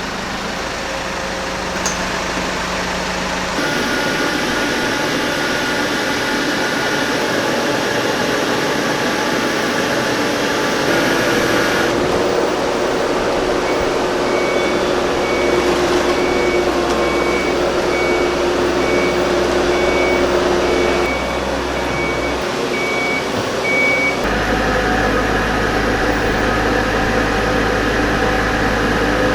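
Engines running steadily during a boat haul-out at a travel lift, the sound changing abruptly a few times. A run of short, evenly spaced warning beeps on one pitch lasts about ten seconds in the middle, typical of a travel lift's motion alarm.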